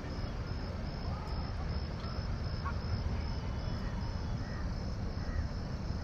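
Outdoor lakeside ambience: an insect chirping in a steady high-pitched rhythm, about two to three chirps a second, over a constant low rumble, with a few faint bird calls.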